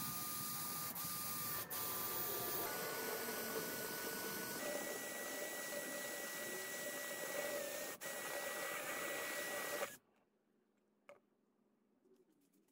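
Cordless drill running at speed, its bit boring into the sheet-steel end of an old oil filter can: a steady grinding whine that steps up in pitch twice, dips briefly a few times, and stops abruptly about ten seconds in.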